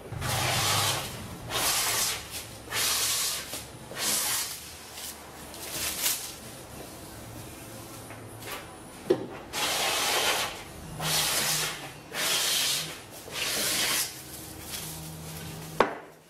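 Bench hand plane cutting shavings off the edge of a pine board: a run of rasping strokes, each about a second long, with a pause of a few seconds midway before the strokes resume.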